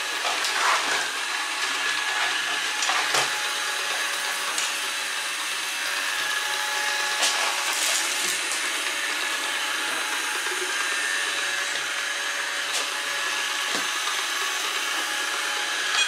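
Kitfort KT-533 robot vacuum running on a wooden tabletop in wet-mopping mode: a steady whir of its motor and brushes, with a few sharp clicks.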